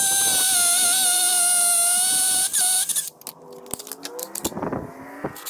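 Cordless drill running under load with a long bit, drilling through an aluminium door threshold into the concrete floor: a steady motor whine that dips slightly in pitch midway and stops abruptly about three seconds in. A few light clicks and knocks follow.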